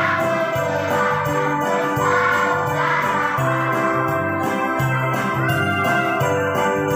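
Children's choir singing a Christmas hymn over an electronic keyboard accompaniment with an organ sound and a steady rhythm beat.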